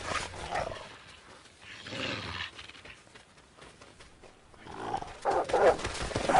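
Growls and roars of European bison and wolves clashing over a carcass: one call about two seconds in, then a run of them over the last second and a half.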